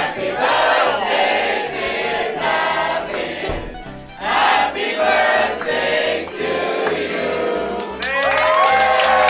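Music: voices singing over a steady pulsing bass beat, ending on a long held chord of several voices near the end.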